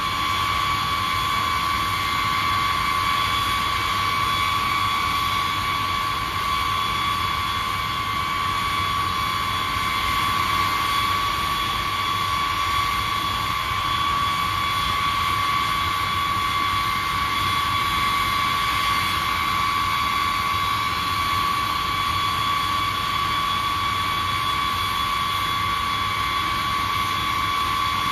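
B-52H bomber's TF33 turbofan jet engines running steadily on the ground: a constant high whine over a rushing rumble.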